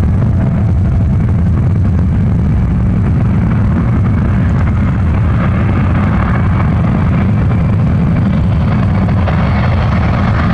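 Boeing C-17 Globemaster III on landing approach, its four turbofan engines giving a deep, steady rumble with a jet roar that grows louder through the second half as the aircraft closes in.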